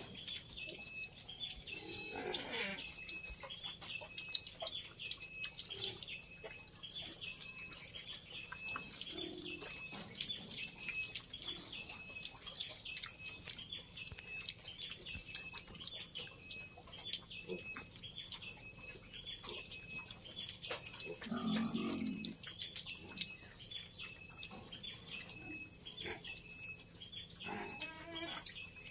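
Native pig weanlings grunting now and then, with the loudest low grunt about two-thirds through and a higher-pitched cry near the end. A faint high tick repeats evenly, a little more than once a second.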